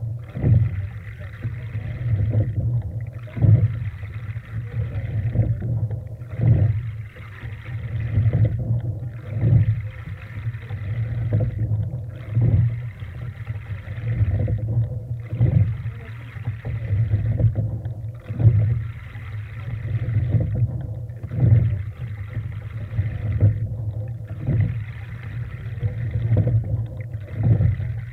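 Sculling shell under way: water rushing along the hull, breaking off and returning with each stroke, and a knock from the oars at each catch, about one stroke every three seconds, over a steady low rumble.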